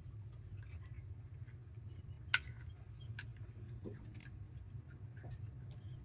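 Light metal clicks and taps of hand tools and pump parts being handled while a new water-pump impeller is fitted to the boat's engine, with one sharper click about two seconds in, over a low steady hum.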